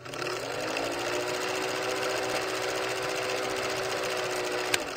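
Vintage film projector sound effect: a steady whirring rattle with a held hum, with a sharp click near the end.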